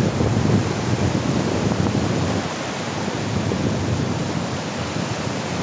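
Ocean surf washing up the shore, with wind buffeting the microphone: a steady, deep rushing noise.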